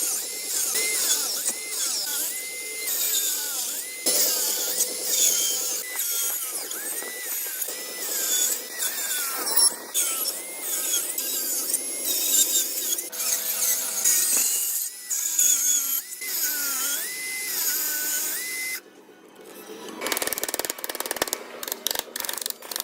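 A power tool runs against wood, with a dense high-pitched cutting noise and a pitch that rises and falls repeatedly. About nineteen seconds in it cuts out and gives way to scattered clicks and knocks.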